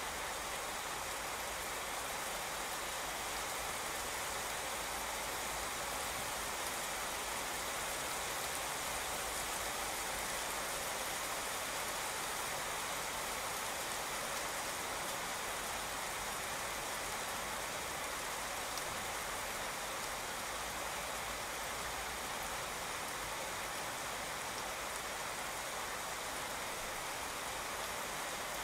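Steady rain falling on a wet street, an even hiss with no distinct drops, splashes or passing cars standing out.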